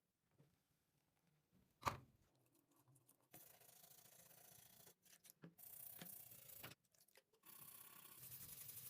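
A sharp click about two seconds in, then three stretches of steady rubbing noise with short pauses between them, from an abrasive or brush worked over a surface.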